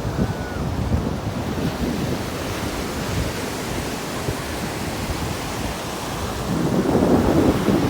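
Ocean surf washing with wind buffeting the microphone; it grows louder near the end.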